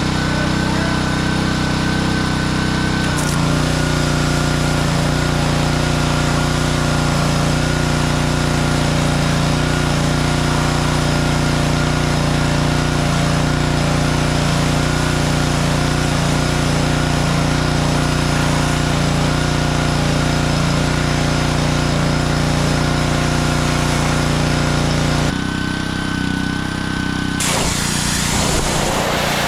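Petrol pressure washer engine running steadily while the wand sprays water. Its note shifts about three seconds in and drops back near the end, where a rushing noise comes in.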